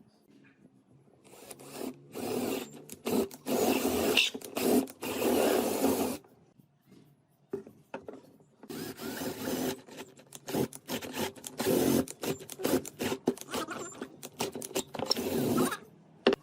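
A woodworking tool working on wood in two long stretches, one from about a second in to six seconds and one from about nine seconds in to near the end, with a short quiet gap between.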